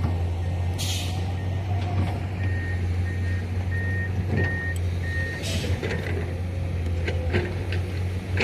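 Diesel dump truck running with a steady low engine hum while its reversing alarm beeps about twice a second. Two short sharp air hisses come through, one about a second in and one just after the beeping stops.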